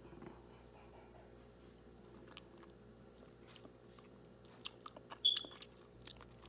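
Close-up mouth sounds of tasting the powdered coating of a strawberry mochi ice cream: tongue licking and lips smacking, a scatter of small wet clicks, the loudest about five seconds in.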